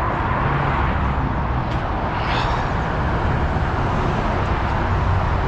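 Steady motorway traffic noise with a low rumble underneath.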